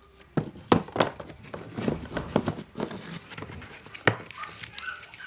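Black PVC electrical tape being pulled off its roll and handled close to the microphone: a run of irregular short crackling rips and squeaks.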